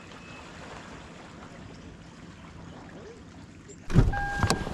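Steady outdoor noise of wind and water around a kayak. About four seconds in, a sudden loud rumble with knocks starts, joined by a steady high tone.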